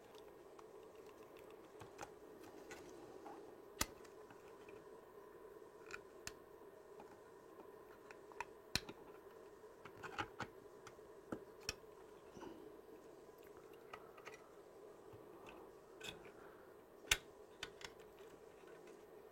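Scattered small clicks and taps of plastic parts being handled and pressed together as a handheld sat-nav is reassembled, irregular and a few seconds apart, over a faint steady hum.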